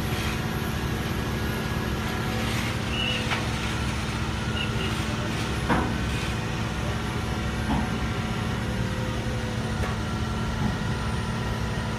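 Diesel engines of a Cat AP655F asphalt paver and a dump truck running steadily while the truck tips asphalt into the paver. A few short sharp knocks, the loudest about six seconds in.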